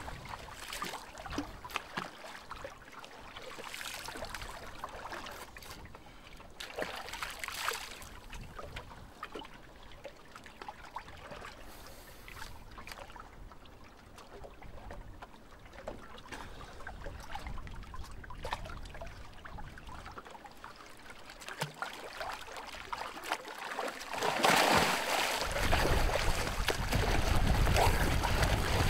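Water lapping and sloshing against the side of a small wooden boat, with scattered small knocks. About four seconds before the end, loud splashing begins as a swimmer thrashes at the surface beside the boat.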